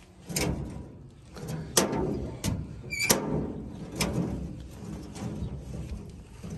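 About five sharp, uneven knocks on a riveted iron door, each followed by brief ringing. A bird chirps once about three seconds in.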